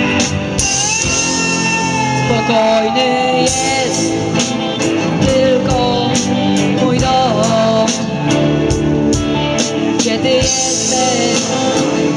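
A live amateur rock band plays: several electric guitars through amplifiers over a steady drum beat, with a melody line of held, bending notes.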